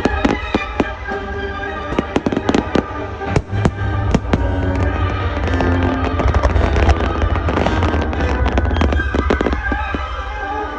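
Aerial fireworks shells bursting in rapid succession with sharp cracks and a deep rumble, over music playing on loudspeakers. The bangs come thickest about eight to nine seconds in.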